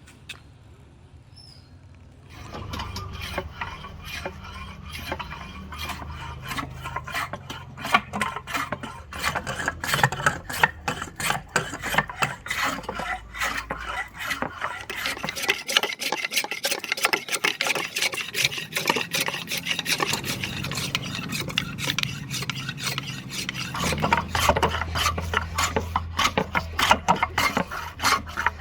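Rapid repeated rasping strokes of a hand tool working rosewood, as the axe handle is shaped. They start about two seconds in.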